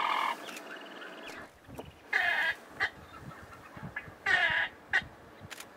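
European storm-petrel calls: a long purring churr that breaks off just after the start, then two short calls about two seconds apart, with brief chirps between them.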